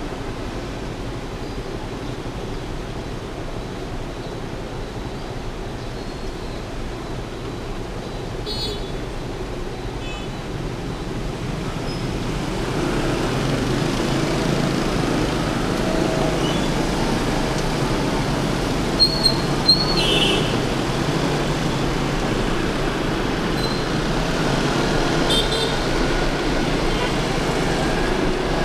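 Steady traffic noise and wind rush from a moving motorbike in city traffic, growing louder about halfway through. Two short horn beeps in quick succession about two-thirds of the way in, with a few fainter horn toots elsewhere.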